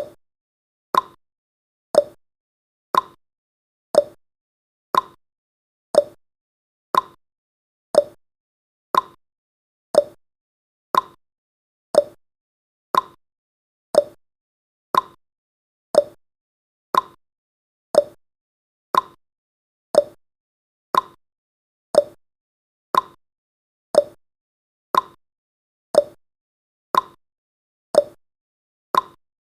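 Clock tick-tock sound effect, one sharp tick each second, alternating between a higher and a lower tick, marking the countdown's seconds.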